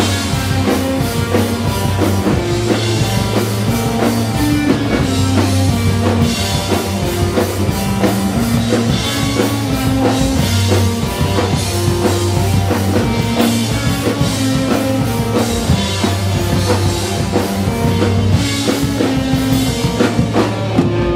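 Rock music with a full drum kit, bass and guitar.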